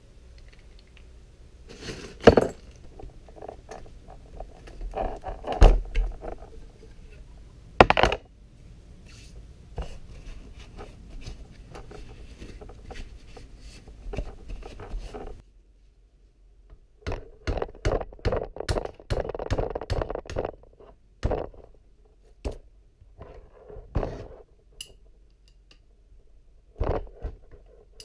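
Hand tools and metal engine parts knocking, clinking and scraping during bench disassembly of a 1985 Kawasaki KX125 two-stroke engine. There are scattered sharp knocks at first, then a quicker run of clatter in the second half.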